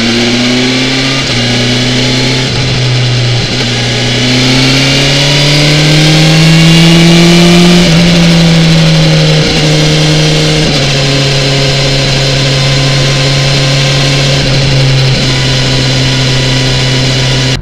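BMW S1000XR inline-four motorcycle engine under way, recorded on board: it pulls with its pitch climbing over a few seconds, drops a step about ten seconds in, then holds a steady cruise.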